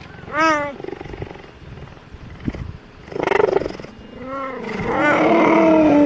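Cheetahs meowing close up: about four short, arched calls, the last one longer and drawn out near the end.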